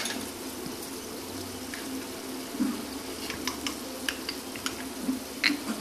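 Spoon stirring turmeric into mustard-seed water in a small glass bowl, with light clinks of the spoon against the glass, over the steady sizzle of okra frying in the pan. One sharper clink comes right at the start, and the fainter ticks begin about halfway through.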